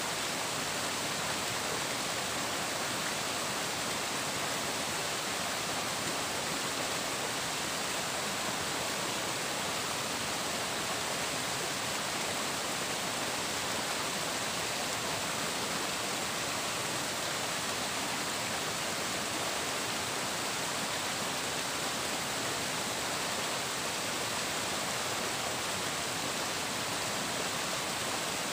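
Flowing water rushing steadily, an even hiss with no breaks or changes in level.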